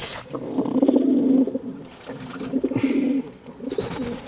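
Fantail pigeons cooing, two long low coos, one starting about half a second in and one past the middle.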